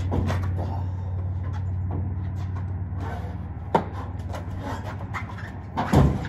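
A dirt bike being lifted and set onto a metal hitch-mounted carrier: scattered small knocks and rubbing, a sharp knock a little past halfway, and a louder clunk near the end as the bike settles on the rack. A steady low hum runs underneath.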